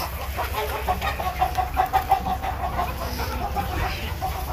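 Domestic chickens clucking: a steady run of short, repeated clucks.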